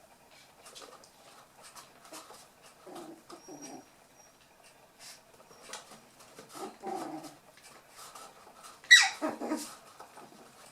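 Toy poodle puppies at play: small growls and whimpers among light clicking and scuffling. Near the end comes one loud, sharp yelp that falls in pitch.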